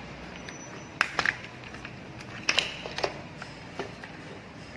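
Clothes-rack parts clicking and knocking as they are handled and fitted together: a few sharp clicks about a second in, then more between two and a half and four seconds in.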